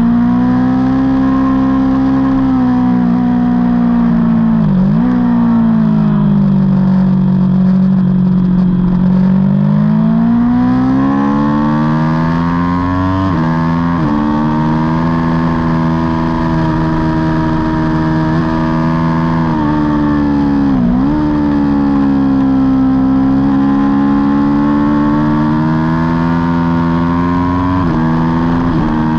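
Aprilia Tuono V4 motorcycle's V4 engine at racing revs, heard on board. The pitch sags and climbs as speed changes, with about four quick sharp dips at gear changes.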